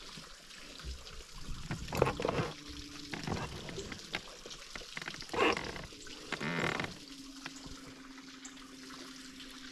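Water lapping and trickling, broken by scattered sharp clicks and knocks, with a steady low hum in the second half.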